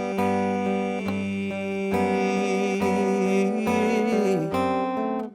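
Instrumental passage of a slow worship song: acoustic guitar and keyboard chords changing about once a second, with a long wavering melody note held through the middle.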